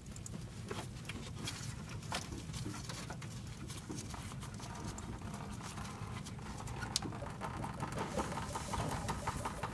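Coolant starting to drain from the radiator into a drain pan: scattered light clicks and taps, then a regular patter of drips from about eight seconds in, over a low steady hum.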